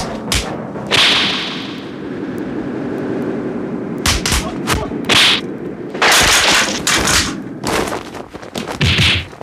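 Dubbed kung-fu fight sound effects: several sharp, whip-like swishes of blows and flying bodies, with a few low thuds, over a steady low background noise.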